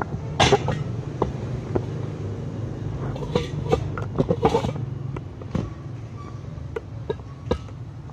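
Wooden window sashes being handled and set down against sheets of glass: scattered knocks and clatters, loudest about half a second in and again in a cluster around three to four and a half seconds in, over a steady low machine hum.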